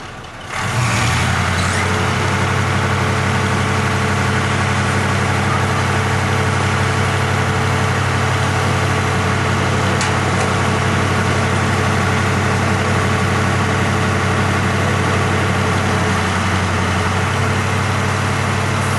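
Fire truck's diesel engine running at a steady raised speed, jumping up about half a second in and holding level, as it drives the hydraulics of its turntable ladder.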